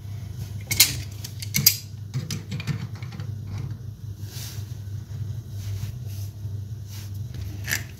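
Light metal clicks and taps of a braided flexi tap connector's nut being fitted onto a copper pipe and pliers being taken up, with two sharper clicks about a second in. A steady low hum runs underneath.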